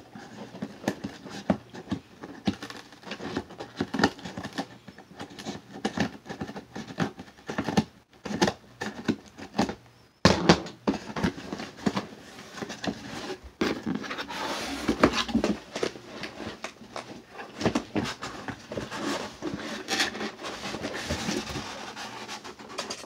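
A shipping package being opened by hand: irregular rustling, crinkling and scratching of packaging with scattered sharp clicks and crackles, broken by two brief silences partway through. Near the end a cardboard box is pulled out and handled.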